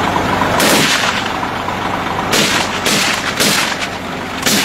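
Gunfire in a roadside firefight: several separate rifle shots, about five over the few seconds, over a steady low hum.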